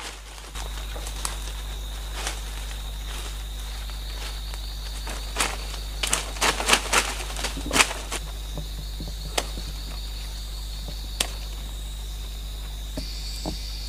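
Steady insect drone of the forest, with sharp snaps and crackles of twigs, leaves and vines as a person pushes through undergrowth and pulls at saplings. The snaps come in a cluster a few seconds in, then a couple of single cracks later.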